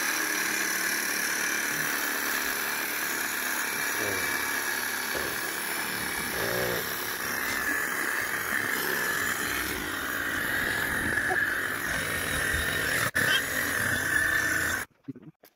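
Trigger-operated electric saw running steadily as it cuts into a Christmas tree trunk, with a steady whine. It starts abruptly and cuts off suddenly near the end.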